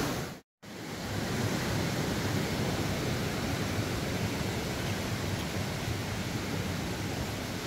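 Rushing of a cascading waterfall fades out and cuts to a moment of silence, then a steady, softer outdoor rushing hiss carries on.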